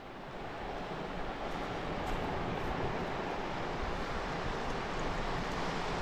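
Fast mountain river rushing over rocks, a steady, even roar of water that swells up during the first second.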